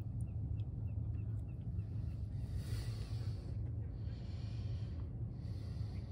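Two long, breathy exhales close to the microphone from the person working on the car, over a steady low rumble.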